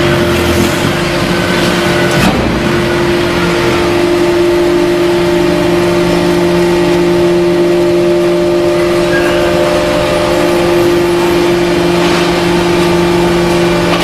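Horizontal cardboard baler's hydraulic power unit running with a steady, loud hum while the machine automatically feeds and compresses waste paper. There is a single knock about two seconds in.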